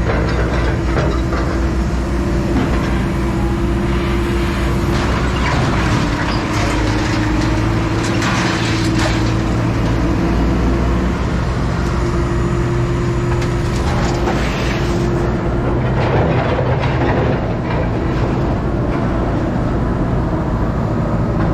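A heavy diesel engine running steadily, with scattered clanks and bangs of scrap steel being handled.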